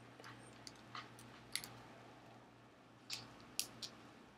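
A handful of faint, scattered clicks and taps as a small vinyl toy figure is handled and its tiny weapon is pressed into its hand.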